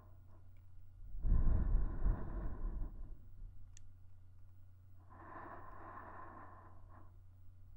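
A woman's slow, close-miked breathing into a binaural dummy-head microphone: two breaths, the first about a second in and louder, with a low rumble of air striking the microphone, the second softer, about five seconds in.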